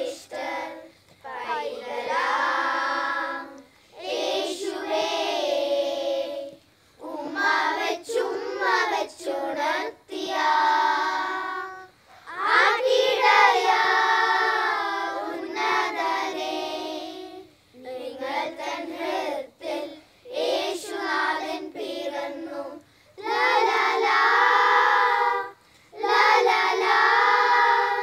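A children's choir singing a Christmas carol in unison, in phrases of a few seconds with short breaks for breath between them.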